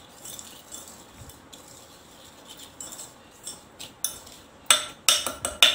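Wire whisk scraping and ticking against a stainless steel bowl while butter is beaten with powdered sugar, with three sharper metal clinks near the end.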